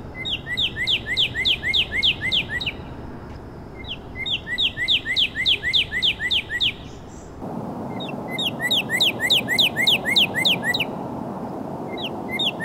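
A songbird singing repeated phrases of about ten quick, downward-slurred whistled notes, about four a second. There are three phrases a few seconds apart and a fourth begins near the end. The bird is recorded from 50 to 75 feet away through a Sennheiser MKE 600 shotgun microphone, switching to a Sound Shark parabolic microphone near the end, over a steady rush of street traffic that grows louder about halfway through.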